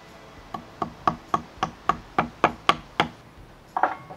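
A hammer driving a nail through a salmon fillet into a maple wood plank: about ten quick strikes, roughly four a second, each with a short ring, getting harder toward the end.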